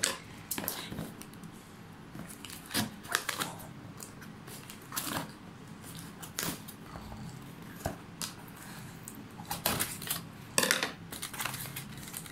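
Small cardboard parcel being cut with scissors and torn open by hand: irregular snips, clicks and short rustling rips of cardboard and tape.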